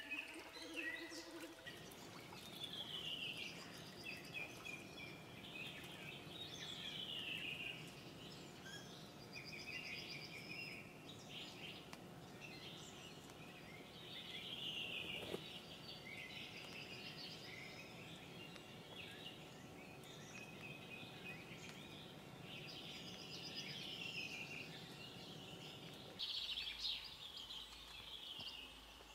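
Small songbirds singing and calling over and over, many short high phrases, several sliding downward, over a faint steady background hiss.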